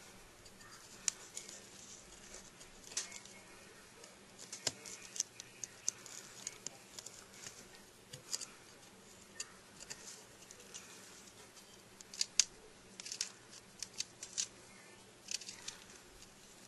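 A Skookum Bushtool knife blade carving a dried goldenrod gall: faint, irregular little scrapes and clicks as the blade shaves and nicks the hard gall.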